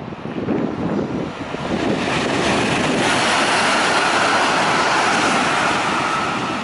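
Electric passenger train passing close by: a rushing noise of wheels and air that swells about two to three seconds in, with a steady high whine underneath. Wind buffets the microphone.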